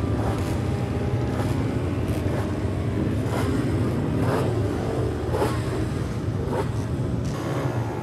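Race motorcycle engines running, the throttle blipped in short sharp revs about once a second over a steady low engine hum.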